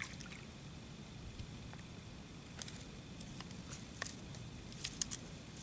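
Quiet outdoor ambience: a low, steady background noise with a few short, sharp clicks scattered through it.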